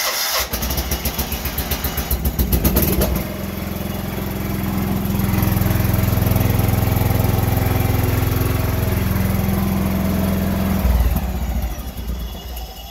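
John Deere GT275 garden tractor's Kawasaki V-twin engine cranking on the starter for about three seconds, then catching and running, getting louder from about five seconds in and winding down near the end. The running has what the owner hears as a slight bumping and grinding.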